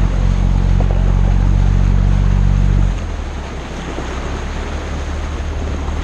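Tour boat's engine running with a steady low drone over the rush of water along the hull; about halfway through the engine note drops abruptly to a lower, quieter hum.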